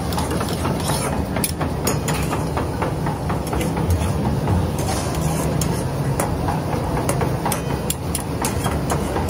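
Metal ladles and spatulas clinking and scraping against steel woks during stirring, with frequent short knocks over a steady low rumble.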